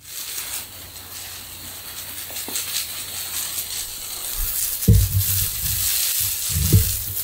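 Garden hose spray nozzle hissing steadily as water sprays onto the concrete floor, rinsing out the etching solution, growing slowly louder. Two dull low thumps come about five and nearly seven seconds in.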